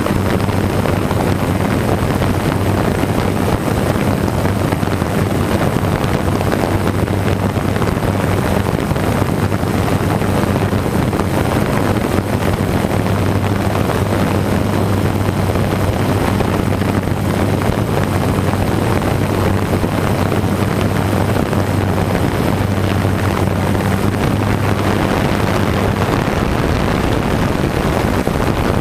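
DJI F550 hexacopter's brushless motors and propellers running steadily, heard from the camera on board: a steady low hum over a wide rush of prop wash and wind on the microphone.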